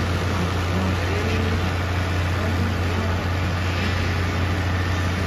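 Small 110cc pit bike engines racing in the distance, revving up and down, over a steady low hum.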